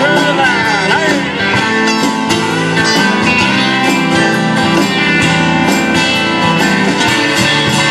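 Live country band playing an instrumental passage, with guitar leading over a steady drum beat.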